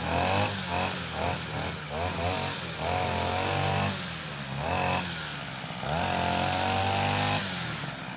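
Grass trimmer engine revving while cutting grass. It gives a quick series of short rising revs, then two longer held runs at full speed, and drops back toward idle near the end.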